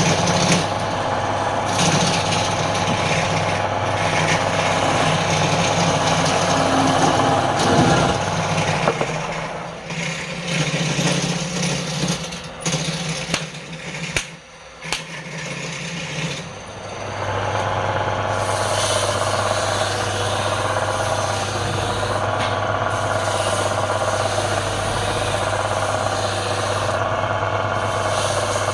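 Wood lathe running with a steady hum. It winds down about eight seconds in, a few sharp knocks follow in the quieter stretch, and it runs again from about seventeen seconds in.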